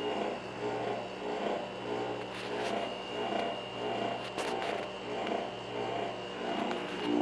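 Compressor of a Rheem Performance Platinum hybrid heat-pump water heater running with a steady low hum and a steady high whine, over which a pitched pulsing noise swells about three times every two seconds. It is the noise of a faulty compressor.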